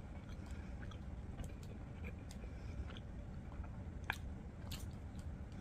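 A person chewing a quesadilla: soft chewing with scattered mouth clicks, the sharpest about four seconds in, over a steady low hum.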